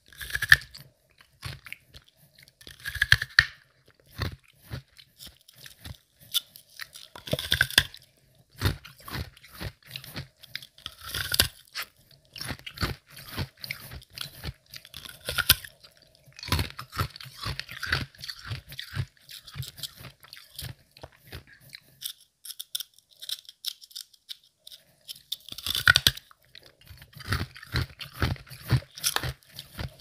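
Close-miked chewing of semi-melted ice, soft to medium crunches in quick runs, with louder bites every few seconds and a short pause about three-quarters of the way through.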